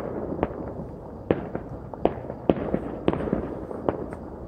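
Fireworks popping in the background: about nine sharp cracks at irregular intervals over a steady low rumble.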